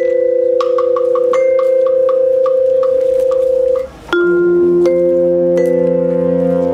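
School band playing live: brass and winds hold sustained chords while a mallet percussion instrument strikes quick repeated notes, about five a second. Near the middle the band breaks off briefly, then comes back in with a fuller chord as lower brass join.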